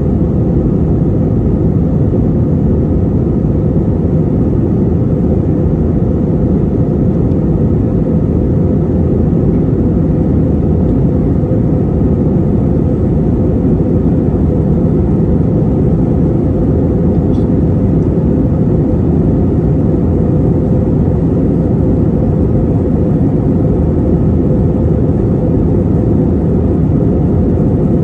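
Steady cabin drone of an Airbus A321-231 in climb: its IAE V2500 turbofans and the airflow over the fuselage make a low, even rumble with a faint steady hum above it.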